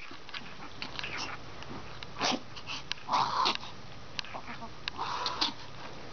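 Dog coughing in harsh, wheezy bursts: a short one about two seconds in, then two longer fits around three and five seconds in, with light clicks in between.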